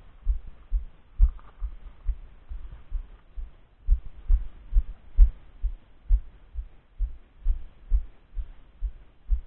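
Footsteps of a person walking at an even pace over leaf-covered woodland ground, heard as dull low thuds about twice a second through a camera worn on the walker's body.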